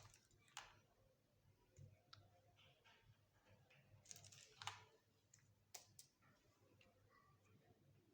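Faint, irregular clicks and taps of small plastic miniature kitchen toy pieces being handled and set down, with a short cluster of taps about four seconds in.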